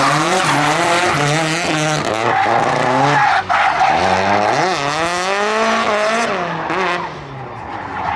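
Drift car's engine revving hard, its pitch swinging up and down as the throttle is worked through a slide, with tyres screeching over it. The engine note breaks off briefly about three and a half seconds in and grows quieter near the end.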